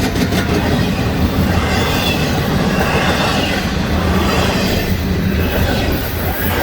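Freight train's intermodal cars rolling past at speed: a steady, loud rumble of steel wheels on the rails.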